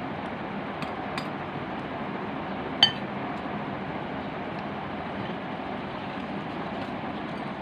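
A metal spoon clinks sharply against a glass bowl near three seconds in, ringing briefly, after two lighter taps about a second in, over steady background noise.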